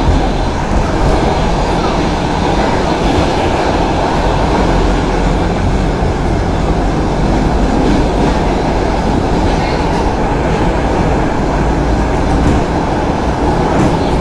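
Stockholm Metro C6 train running steadily: a loud, even rumble of wheels on rail and running gear, with a couple of faint clicks.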